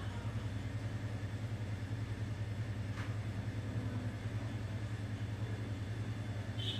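A steady low machine hum with a fast, even flutter in its loudness, running without a break.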